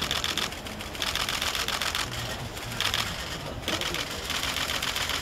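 Many still-camera shutters clicking in rapid bursts from a pack of press photographers, a dense overlapping clatter that comes in several waves.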